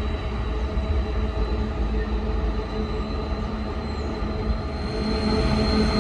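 Diesel locomotive running under power: a steady drone with a thin high whine over it, growing louder near the end.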